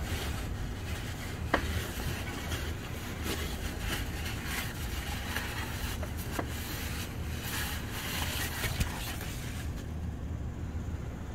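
Transmission fluid being poured from a quart bottle into a long funnel, a steady hissing trickle that stops about ten seconds in, with a few sharp clicks of plastic being handled.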